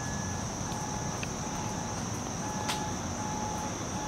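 Steady high-pitched drone of insects calling in late summer, over a low background rumble, with a soft short beep repeating about twice a second.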